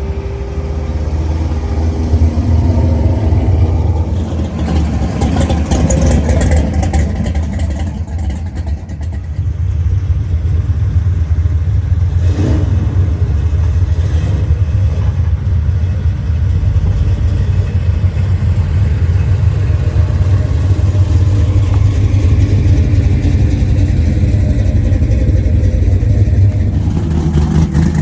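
A car engine running for a long stretch as a loud, steady low drone, with a short click about halfway through.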